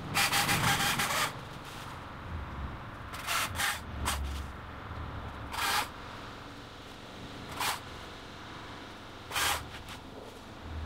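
Husqvarna electric chainsaw run in short bursts as it cuts through small branches: about a second of running at the start, then five brief bursts a second or two apart.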